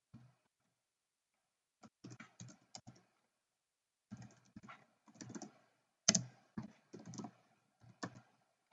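Quiet computer keyboard typing: several short runs of keystrokes with brief pauses between them.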